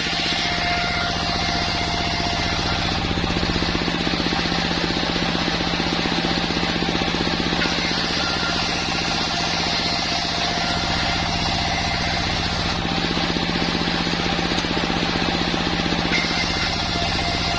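Sawmill machine running steadily with a constant engine hum and hiss, the higher hiss easing slightly about three seconds in and again near thirteen seconds.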